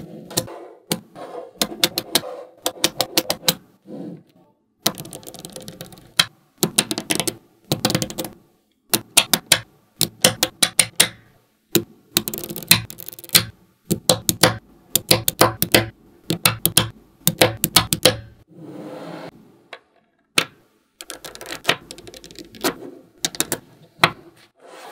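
Small magnetic balls clicking and snapping together in quick clusters of sharp clicks, with a softer rattle between them as the balls are pieced into a model.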